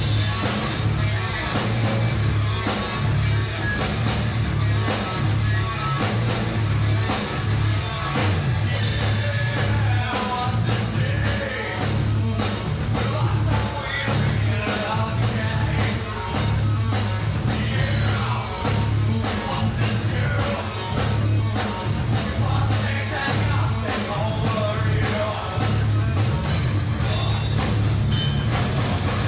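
Alternative metal band playing live: distorted electric guitar riffs over bass guitar and a drum kit keeping a steady, fast beat.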